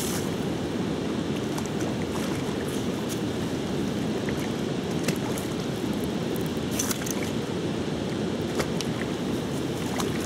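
Steady rush of river water flowing, with a few faint scattered clicks.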